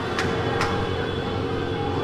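Straight-piped Yamaha XJ6 inline-four motorcycle engine holding steady revs between a throttle-off and the next rev, its exhaust running with no muffler. Two short ticks sound within the first second.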